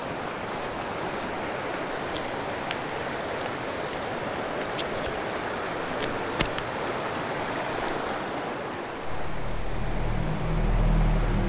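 Steady rushing of a small mountain creek running over rocks, with a few sharp clicks and snaps scattered through it. About nine seconds in, a low rumble joins.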